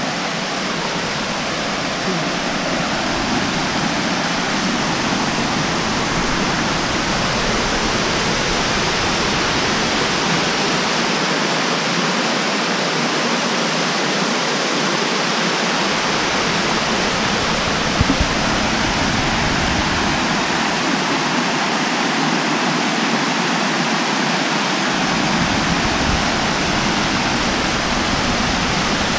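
Waterfall pouring over a rock ledge: a loud, steady rush of water heard from right at the lip of the falls.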